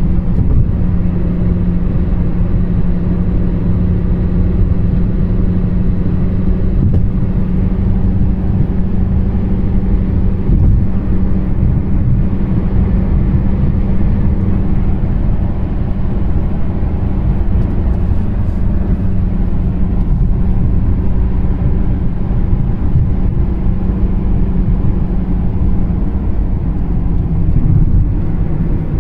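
Steady road noise inside a moving taxi's cabin at speed: low tyre and engine rumble with a constant hum.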